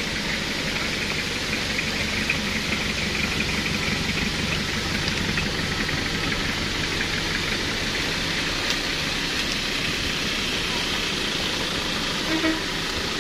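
Vehicle engines running at low speed as pickups and a light truck creep one by one past landslide rubble on a wet road, over a steady hiss of rain.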